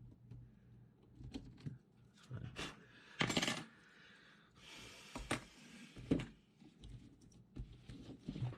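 Scattered light clicks and taps of hand tools and wires being handled while soldering a quadcopter's motor wires, with a brief soft hiss about five seconds in.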